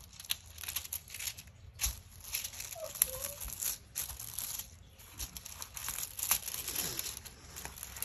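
Clear plastic sheet over a diamond painting canvas crinkling in irregular rustles as a hand smooths it and slides it back into place.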